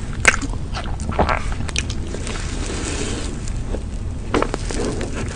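Close-miked mouth sounds of eating chocolate ice cream: wet sucking and lip smacks, with a few sharp clicks and a stretch of slurping noise in the middle.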